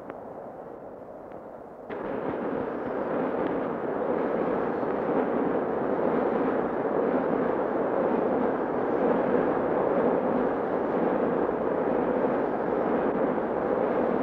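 Steady rushing roar of a Shinkansen bullet train running at speed, jumping suddenly louder about two seconds in and then holding.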